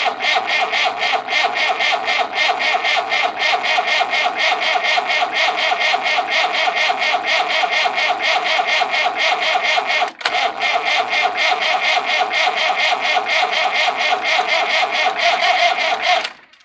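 Massey Ferguson 165 diesel engine being cranked over on its starter motor, a steady rhythmic churning of about five even beats a second, with a brief break a little after ten seconds and stopping suddenly near the end. It is cranking with two injection lines cracked open to bleed air out of the fuel system.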